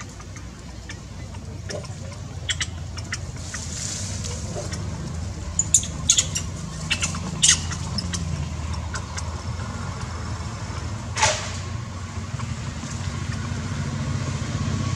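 A steady low rumble like a motor running, slowly growing louder. Over it come a cluster of sharp high clicks about six to eight seconds in, and one short, louder high burst about eleven seconds in.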